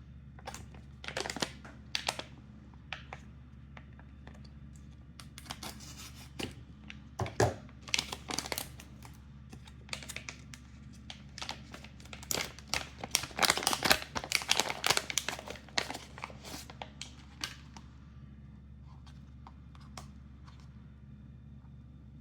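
A small package of fidget-toy parts being opened by hand: irregular rustles and crackles of the packaging, thickest just past the middle and stopping a few seconds before the end.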